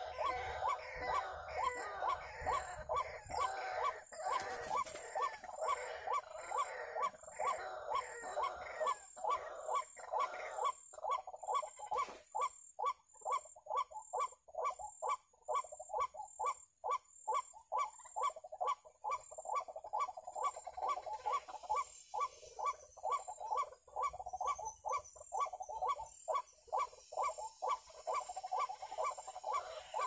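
White-breasted waterhen calling, a loud rhythmic croaking 'kru-ak' repeated about twice a second without a break, the call used to lure these rails to a snare.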